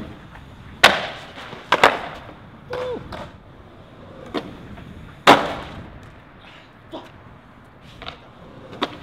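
Skateboard clattering on concrete: a series of sharp cracks and clacks as the board pops, lands and strikes the stairs and pavement. The loudest hit comes about five seconds in.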